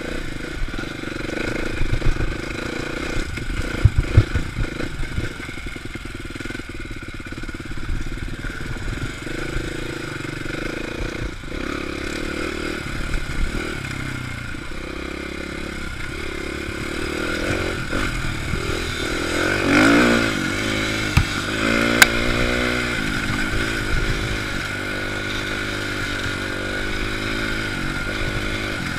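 Dirt bike engine running under the rider, its pitch rising and falling as it is revved along a rough trail. Sharp knocks and rattles from the bike bouncing over the ground come mostly in the first few seconds, with one loud knock late on.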